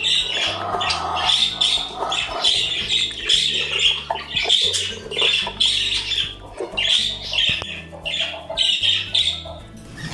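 Small parrot squawking over and over in harsh calls, several a second with short breaks.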